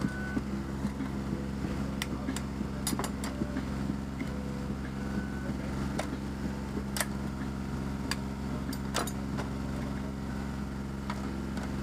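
A boat's engine running with a steady low drone, under a few sharp taps and cracks as eggs are broken against the rim of a mixing bowl.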